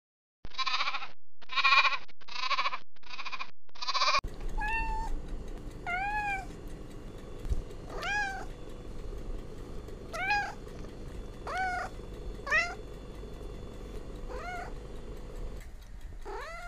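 A cat meowing. It opens with five short calls in quick succession, then gives about eight separate meows, each rising then falling in pitch, spaced one to two seconds apart.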